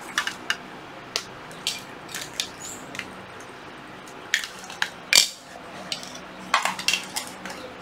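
Scattered clicks and light clatter of hard plastic cordless power tools being handled, with one louder knock about five seconds in.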